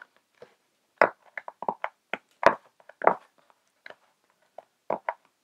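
Small cardboard box being opened by hand: an irregular string of crackles, scrapes and light knocks as the tucked lid flap is prised and pulled open.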